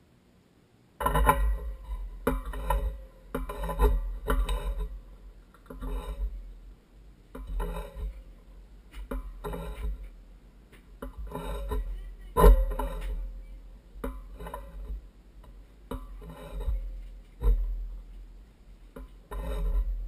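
Metal hand tool clinking and scraping against galvanized steel pipe fittings, in irregular clattering knocks with a short metallic ring, starting about a second in.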